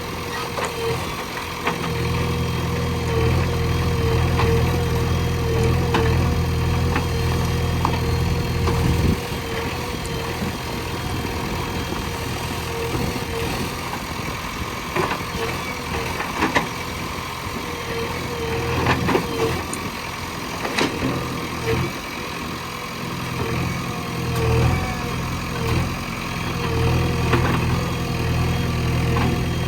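Backhoe loader's diesel engine running steadily, with scattered short knocks.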